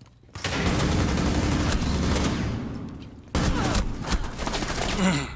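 A person coughing in two long, harsh, forceful fits, the first about two and a half seconds and fading out, the second about two seconds and ending in a short falling voiced sound.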